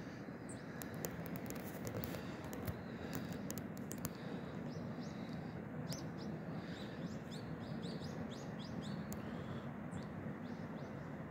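Small birds chirping in many quick short calls, busiest in the second half, over the steady low rumble of an electric commuter train running past.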